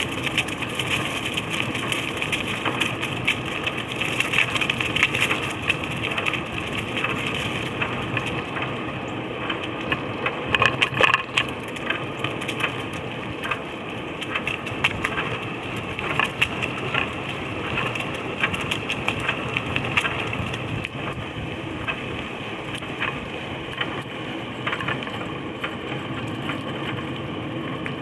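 Cruiser bicycle's tyres rolling over a gravel trail strewn with dry fallen leaves: a continuous crunching and crackling full of small clicks, with a louder patch of crackles about eleven seconds in.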